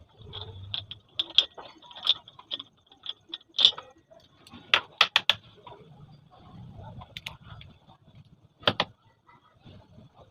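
Metal clinks and clicks of a bearing puller and its pins being fitted onto a ceiling fan rotor's ball bearing, with a quick group of three sharper strikes about five seconds in and another near the end.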